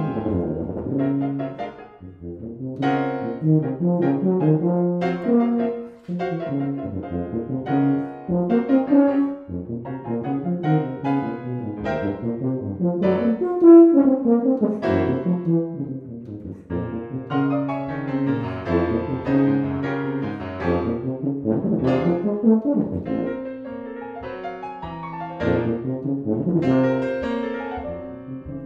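Tuba playing a run of low and middle-register notes with piano accompaniment, continuing without a break.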